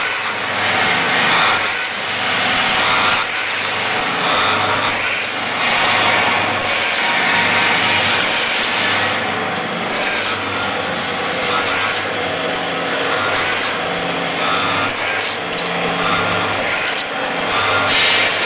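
Hualian DXDF-20AX automatic powder sachet packaging machine running, a steady mechanical rasping whir with a cycle that repeats about every one and a half to two seconds as each bag is made.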